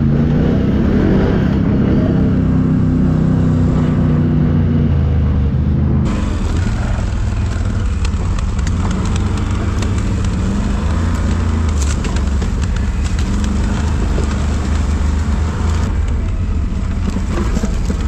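ATV engine running at steady revs. About six seconds in, the sound cuts to a lower engine note with many crackles and knocks as the quad rolls over dry leaves and fallen branches.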